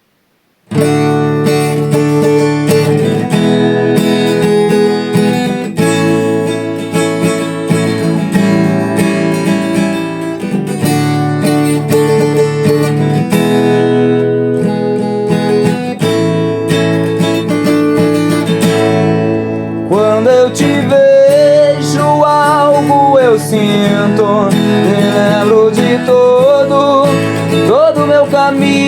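Song intro on a strummed acoustic guitar, starting just after the beginning; a singing voice comes in over the guitar about twenty seconds in.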